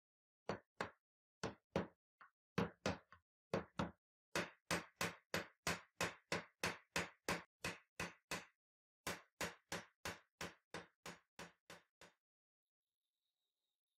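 Metal hammer striking the wooden handle scale of a knife held in a vise. About thirty sharp blows, irregular at first, then a steady run of about three a second with one brief pause, growing a little softer before they stop.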